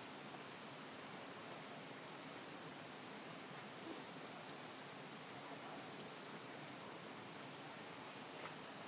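Steady hiss of running water, with short high chirps every second or two.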